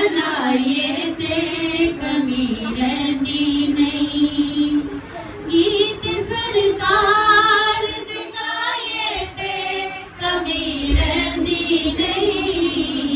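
A female voice reciting a naat, an Urdu devotional song in praise of the Prophet, sung in long held, wavering melodic lines that climb higher about halfway through.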